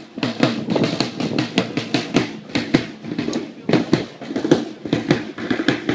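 Marching drum beaten in a steady march rhythm, several sharp strokes a second.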